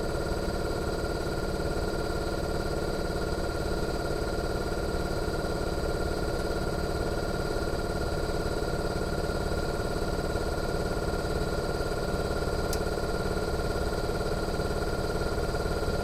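Outdoor unit of a Fujitsu General AO-C28H inverter air conditioner running in defrost mode: a steady compressor hum with several high, even whine tones above it. There is a faint tick about three-quarters of the way through.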